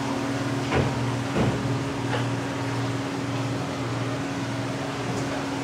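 Steady low machine hum from a motor or fan, with three light knocks in the first two seconds.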